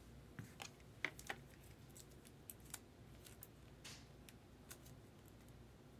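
Near silence with faint, scattered clicks and rustles of trading cards in plastic sleeves being handled.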